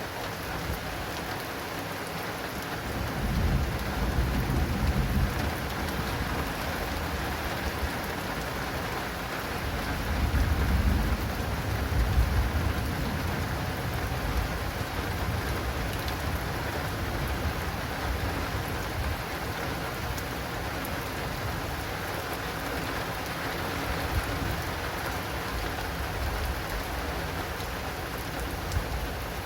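Heavy rain falling steadily on an acrylic awning, with thunder rumbling low twice, about three seconds in and again around ten seconds in.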